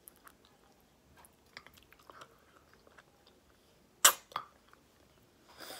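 Close mouth sounds of eating with the fingers: faint chewing and small lip smacks, then a loud sharp smack about four seconds in, a smaller one right after, as food is sucked off the fingers, and a short sucking noise near the end.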